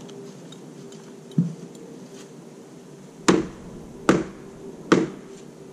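Hammer striking wooden deck framing: three sharp blows a little under a second apart, after a single duller thump.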